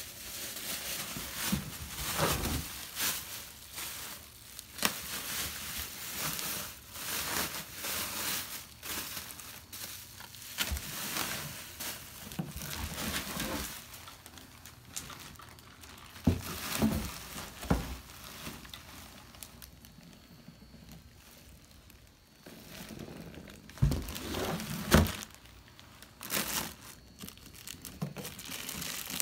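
Bubble wrap and plastic bags crinkling and rustling in irregular bursts as a packed hydraulic unit is unwrapped by hand, with a few sharp knocks in between.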